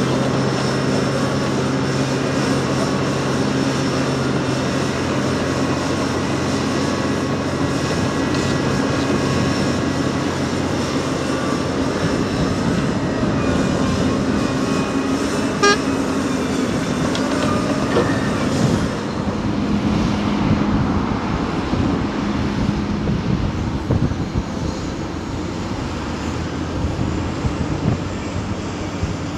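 Heavy diesel earthmoving machinery (large excavators and off-highway dump trucks) running steadily, its engine note shifting a couple of times, with a sharp knock about halfway through.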